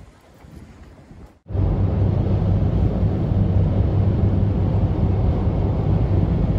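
Petrol car cruising on an expressway, heard from inside the car: a loud, steady drone of engine and tyre noise with a low hum. It cuts in suddenly about a second and a half in, after light wind noise on the microphone.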